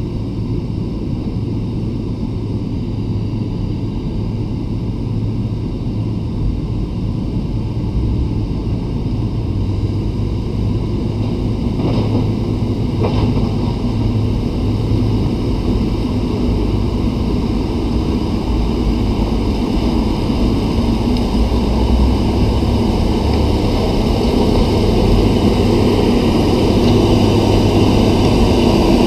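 Caterpillar 160K motor grader's diesel engine running as the grader drives closer, growing steadily louder. Two short clicks sound near the middle.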